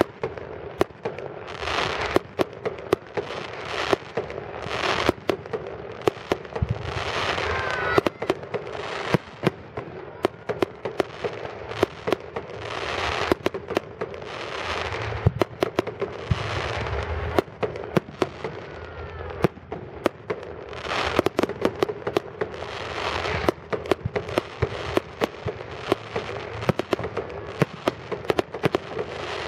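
Aerial fireworks display: a continuous run of sharp bangs from shells launching and bursting, often several in quick succession, with hissing swells between them.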